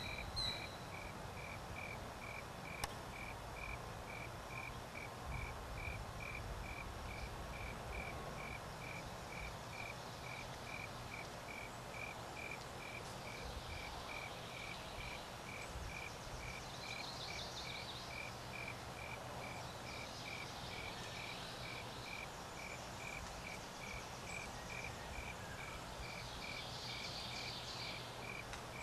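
A cricket chirping steadily on one pitch, about two chirps a second, with faint high trilling calls now and then in the second half.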